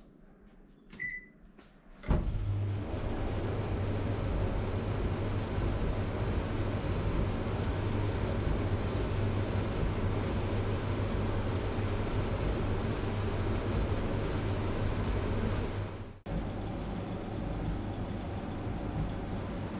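Rinnai gas clothes dryer running: a steady machine noise with a strong low hum starts suddenly about two seconds in, after a short beep. It cuts out for a moment near the end, then runs on a little quieter.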